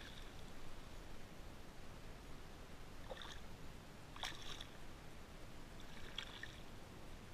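A hooked fish thrashing and splashing at the water's surface on a fishing line, in three short faint splashes about three, four and six seconds in.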